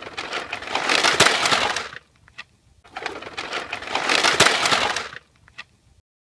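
Plastic Bruder toy low loader and excavator crunching and scraping over gritty sand as they crash, in two swells of about two seconds each, each with a sharp knock at its height and a couple of light clicks after, then the sound cuts off suddenly.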